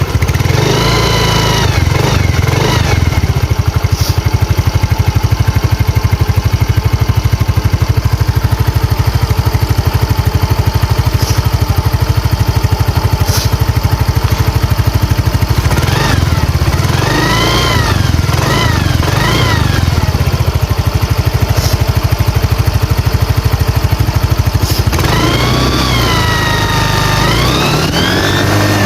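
Yamaha Soul GT 125 scooter engine idling, with a high whistling 'nging' whine from a home-made zinc-sheet turbo sound effect that sweeps up and down in pitch each time the throttle is blipped: at the start, several quick blips midway, and a longer rev near the end.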